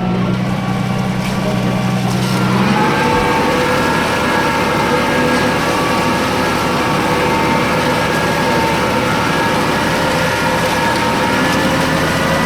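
Tractor engine running steadily while pulling a plough. About two and a half seconds in its note rises and then holds steady.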